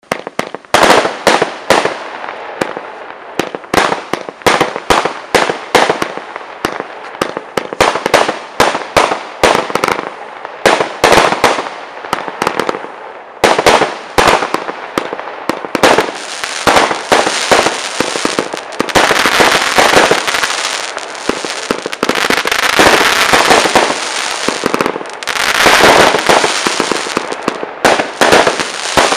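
Weco 'Wolfpack' consumer firework going off. It starts as a rapid run of sharp shots, about three or four a second. About halfway through it thickens into a dense, continuous wash of bangs and crackling, loudest twice in the second half.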